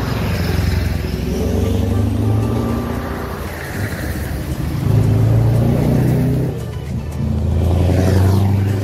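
Heavy diesel lorry tractor units driving past one after another. The engine drone swells as each one passes close and is loudest about five seconds in and again near the end.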